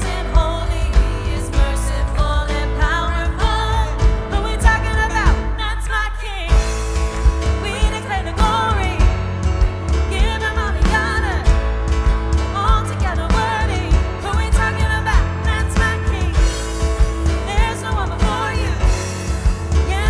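Live worship band playing a song with sung vocals over drums, bass guitar, piano and synth, with a steady beat.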